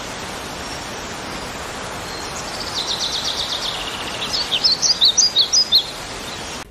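White cockatoo chirping: a quick high trill, then a run of short high chirps about four a second, over a steady hiss.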